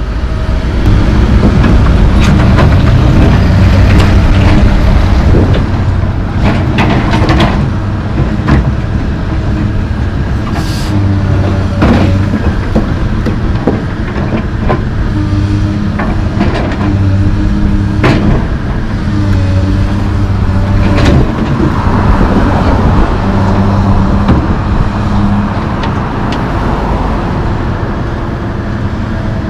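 Komatsu PC220LC excavator's diesel engine running and changing pitch as the hydraulics work the boom, with scattered sharp clanks and knocks from the bucket and machinery throughout.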